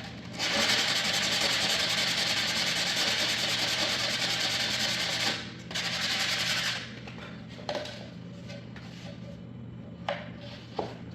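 Sandpaper rubbed by hand along the edge of a laminate floor plank, for about five seconds and then again briefly, to take off material where the plank fits too tight. A few light knocks follow near the end.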